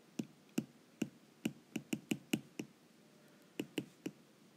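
Stylus tip tapping and clicking on an iPad's glass screen during handwriting: a dozen or so sharp, short clicks in quick runs, with a pause of nearly a second in the middle.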